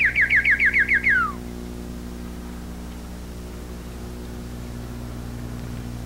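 White-crowned sparrow song in the Berkeley dialect, played back from a recording. The song ends here with a rapid trill of about eight quick falling notes and a final note that slides down, the falling end typical of this dialect. After about a second and a half only a steady low hum remains.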